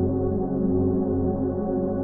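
Ambient background music of held, steady tones with no clear beat.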